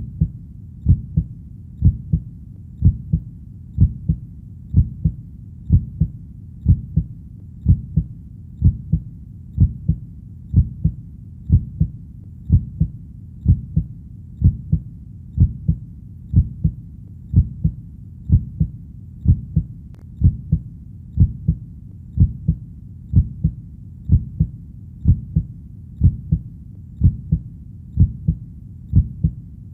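Heartbeat: steady low double thumps (lub-dub), about one beat a second, without a break.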